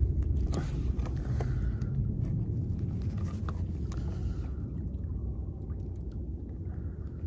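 A steady low rumble of wind buffeting the microphone, slowly easing off. Over it come a few light clicks and rattles from groupers being handled on a line stringer, mostly in the first few seconds.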